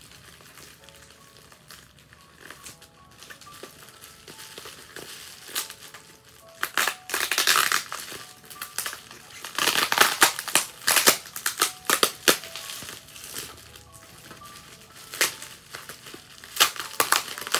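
Plastic bubble wrap around a guitar stand crinkling and rustling as hands work it loose. The rustling comes in irregular bursts, heaviest from about seven to twelve seconds in and again near the end, with faint music underneath.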